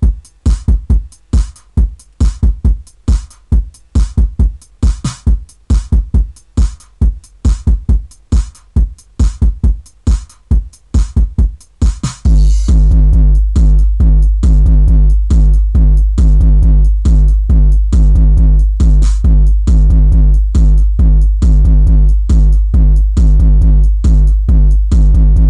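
Techno music played through a Fiat Stilo's factory car audio system: a steady drum-machine kick beat, joined about halfway through by a heavy, deep bass line under the continuing beat.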